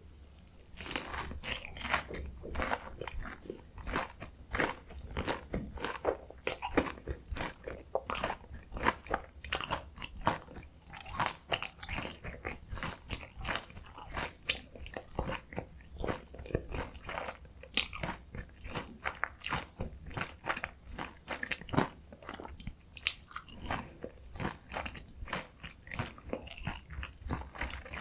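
Close-miked crunching and chewing as a potato-coated mozzarella corn dog is eaten: the crisp fried batter and potato cubes crackle in many irregular bites.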